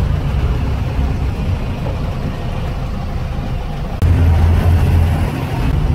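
Engine and road noise from inside an open-sided passenger vehicle while it drives: a steady low rumble with wind and traffic noise. It gets louder about four seconds in.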